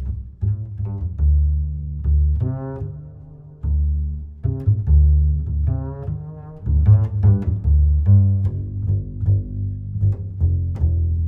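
Background music built on low string notes: a deep bass line with many short plucked attacks.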